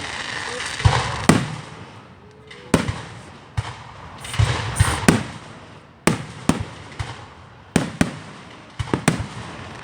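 Aerial fireworks bursting: about a dozen sharp bangs at uneven intervals, some in quick pairs, with crackling between them.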